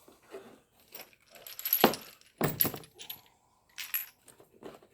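Steel wrench sockets clinking and rattling against each other as they are handled, a string of short metallic clatters with the loudest two near the middle.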